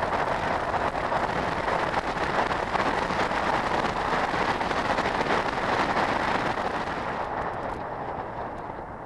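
Wind buffeting the microphone of a camera mounted on a moving motorcycle, with road noise, as a steady rushing noise; it eases off near the end as the bike slows.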